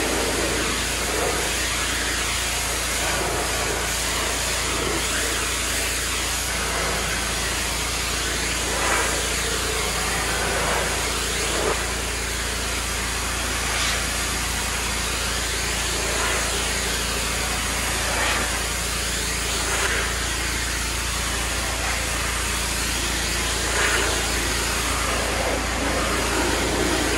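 Pressure washer running steadily, its high-pressure water jet spraying on the treads of wooden deck stairs.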